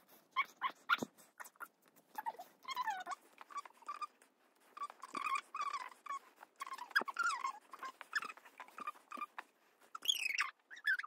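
Orange rope being unknotted and pulled through the lacing of a prop kotsuzumi: irregular rustling and clicking, with short, high squeaks as rope rubs against rope.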